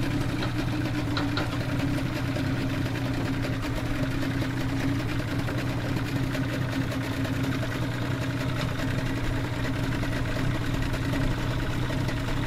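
Yamaha 115 Enduro two-stroke outboard motor idling steadily.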